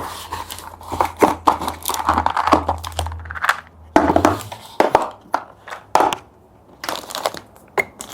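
A small cardboard box and its packaging being opened by hand: irregular crinkling, rustling and tearing with sharp clicks and knocks.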